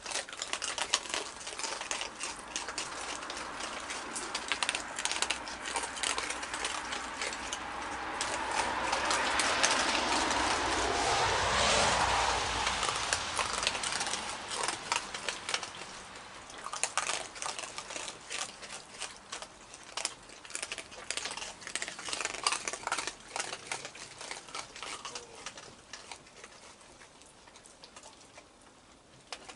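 Raccoons crunching dry kibble: a dense patter of small crunches and clicks. Around the middle, a broad rushing sound swells up and fades away.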